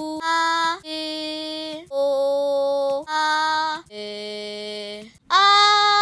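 A high voice sings a string of held vowel notes, about six of them. Each note is steady in pitch, lasts around a second and breaks off before the next, and the notes step between different pitches. The last one, near the end, is the loudest.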